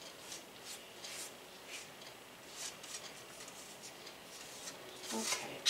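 Sandwich bread being grated into crumbs on a metal box grater: soft, irregular scraping strokes, with louder ones near the end.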